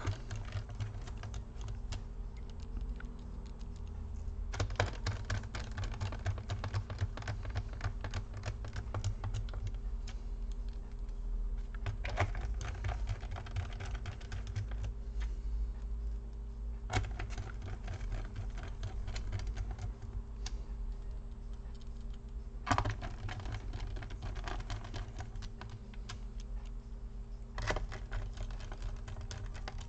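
Small screws being driven into a laptop's plastic bottom cover with a hand screwdriver: a continuous run of light clicks and scrapes, with a sharper knock every five seconds or so, over a steady low hum.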